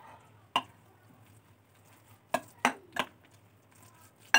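Spoon clinking against a glass bowl while mixing mashed boiled egg with mayonnaise: a handful of irregular sharp clinks, the loudest near the end.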